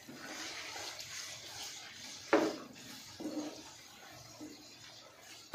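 Raw chicken mince and fried onions sizzling in hot oil in a wok, stirred with a wooden spatula. The spatula knocks sharply against the pan a little over two seconds in, with a softer knock about a second later.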